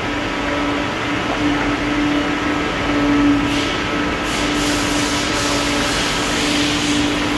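Machinery running steadily: an even mechanical noise with a constant mid-pitched hum.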